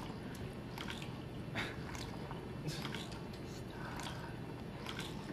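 Water trickling and dripping in a small tabletop pump-and-tubing machine, with a few faint, irregular drips and clicks over a low, steady background.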